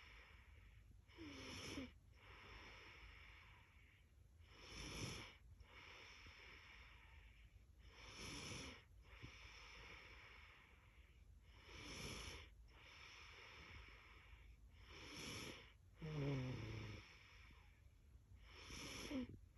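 A little girl snoring in her sleep: slow, even breaths about every three and a half seconds. Some breaths carry a low rattle, strongest about sixteen seconds in.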